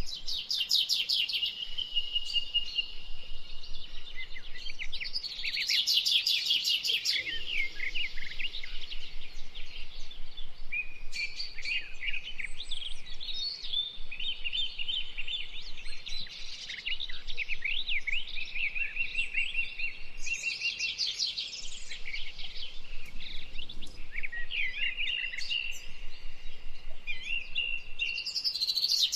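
Several birds chirping and calling together: rapid trills recur a few times between short whistled notes and chirps.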